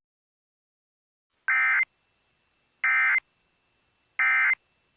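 Emergency Alert System end-of-message code: three short, identical buzzy digital data bursts about a second apart, the signal that closes an EAS alert.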